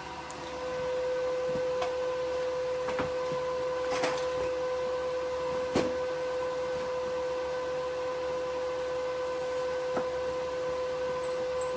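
TIG welding arc on aluminium, striking shortly after the start and then buzzing with a steady high hum while a bead is run, with a few sharp crackles.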